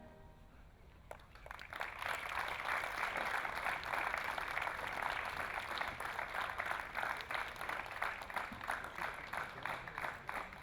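Audience applauding, starting about a second in and thinning to more scattered claps near the end.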